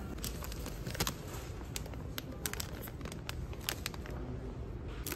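Clear plastic bags around plush keyrings crinkling and crackling as they are handled, in many small irregular clicks, over a steady low background hum.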